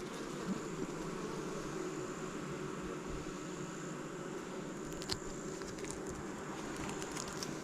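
Honeybees buzzing steadily around an opened hive, with a few faint clicks in the middle.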